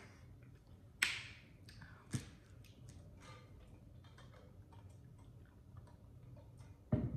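Plastic ketchup squeeze bottle sputtering out a squirt about a second in, then a sharp click a second later. Faint sipping through a straw follows, and a dull thump near the end as the cup is set down on the table.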